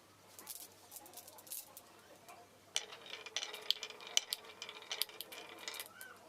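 Marbles rolling and clattering down a wooden marble run, a quick patter of small clicks and knocks. It starts sparse and faint, then grows busier and louder about three seconds in.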